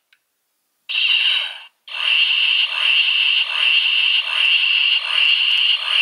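Transformation sound effect of a fan-made Super Sentai henshin morpher: a short high burst about a second in, then a high pulsing sound that repeats roughly every three-quarters of a second.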